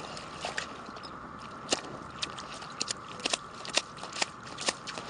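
Fishing net being hauled by hand out of a hole in the ice: an irregular string of sharp clicks and taps, more frequent after the first second or so, over a steady hiss.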